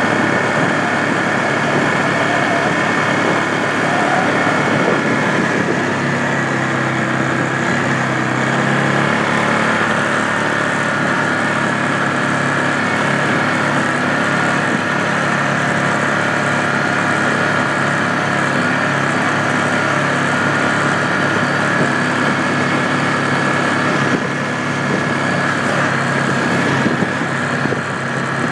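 ATV engines running steadily at riding speed, the engine note shifting a little now and then.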